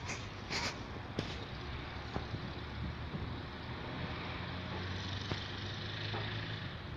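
Outdoor background noise with a motor vehicle's engine humming low and steady from about four seconds in, fading out just before the end. A few light clicks in the first second.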